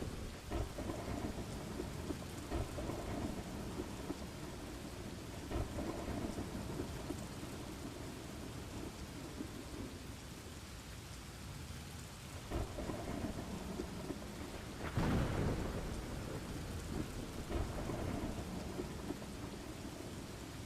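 Steady rain with rumbling thunder, the loudest roll of thunder swelling about fifteen seconds in.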